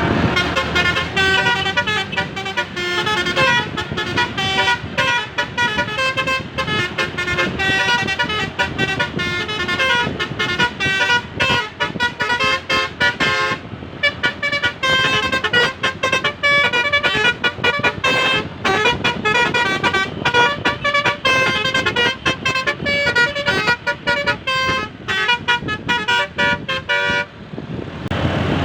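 Basuri telolet horn playing a fast melody of short, rapidly changing horn notes, with brief breaks about halfway through and near the end.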